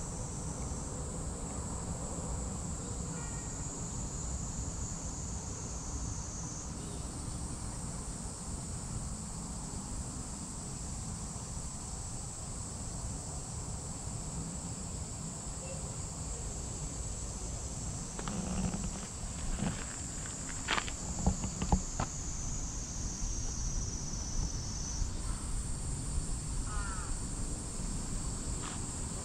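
A steady, high-pitched chorus of insects droning, its pitch shifting a little a couple of times. About two-thirds of the way through, a few brief knocks and rustles stand out above it.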